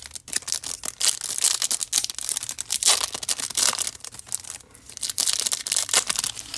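Crinkling and tearing of a foil trading-card pack wrapper being handled and ripped open, in dense crackling spells with a short lull about two-thirds of the way through.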